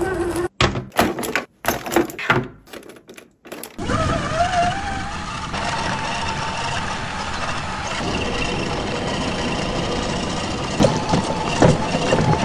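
Electric motor and geartrain of a Traxxas TRX-4 K5 Blazer RC scale crawler running with a whine, its pitch rising briefly about four seconds in. The first few seconds are choppy, with short clicks broken by sudden silences. A few knocks come near the end as the tyres climb over rocks.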